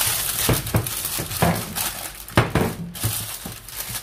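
Packaging crinkling and rustling as it is handled, with several sharp knocks and clinks of dishes on a kitchen counter.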